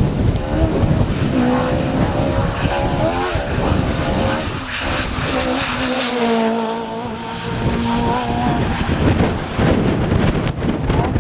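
Rally car engine revving hard on a stage, its note climbing and dropping through gear changes, then holding steadier for a few seconds. Strong wind buffeting the microphone rumbles underneath.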